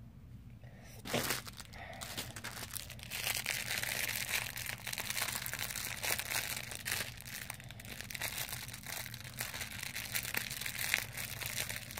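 Clear plastic packaging bag crinkling and crackling as it is handled and opened, starting about three seconds in, after a single knock about a second in.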